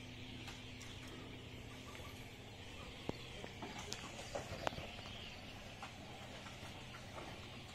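Faint outdoor ambience: a steady high hiss with a few short sharp clicks or snaps, the loudest about three and about four and a half seconds in.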